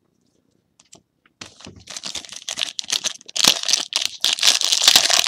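Foil wrapper of a 2012-13 Panini Crusade basketball card pack being torn open and crinkled by hand: a dense crackling that starts about a second and a half in and grows louder.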